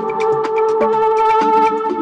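Electronic music: held synthesizer chords over a fast, even ticking beat.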